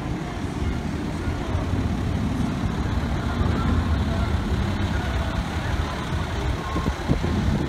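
A fire engine pumper's diesel engine running as the truck moves slowly at close range, giving a steady low engine sound.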